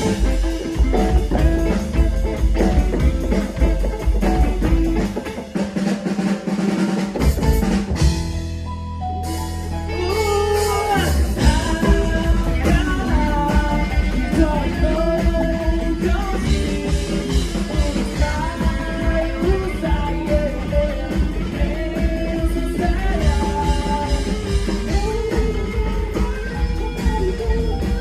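Live rock band playing: drum kit, electric guitar and singing. About five seconds in the band thins out to a break, a low note is held for a few seconds, and then the full band comes back in with the sung melody.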